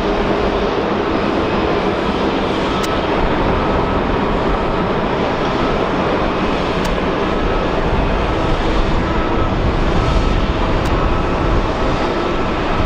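Boeing 777-300's twin jet engines during its runway roll: steady, loud jet-engine noise with a deep rumble underneath.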